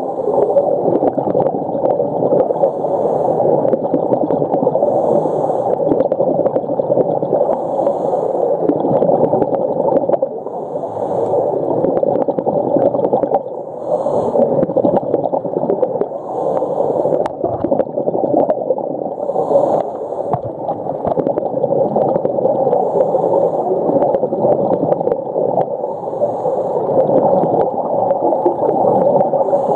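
Muffled underwater rushing and gurgling picked up by a submerged camera while snorkelling, with faint short hisses every couple of seconds.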